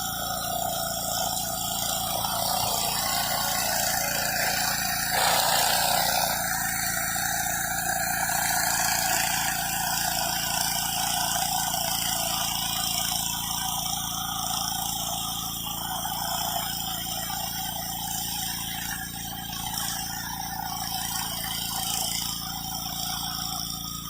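Pressure washer engine running steadily under the hiss of high-pressure water spraying concrete, briefly louder about five seconds in.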